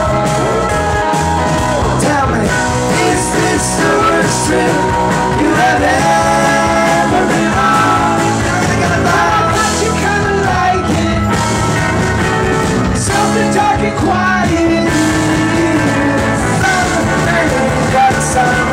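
Live rock band playing, with a man singing over electric bass, electric guitar and drums.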